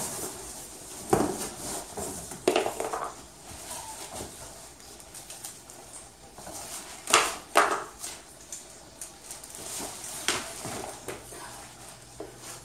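Unboxing a folded rollaway bed: cardboard scraping and plastic wrap rustling, with five sharp knocks and clatters as the bed's metal frame is pulled from its box and set down. The loudest two come close together about seven seconds in.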